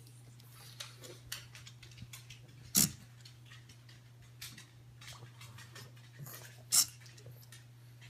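Hobby servo of a 3D-printed Arduino pan/tilt camera mount stepping the camera round: two short, loud moves about four seconds apart, with small ticks between them over a steady low hum.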